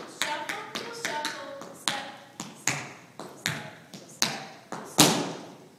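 Tap shoes striking the floor in a dance sequence: a run of sharp, separate taps, some in quick pairs, ending with one loud final stamp about five seconds in.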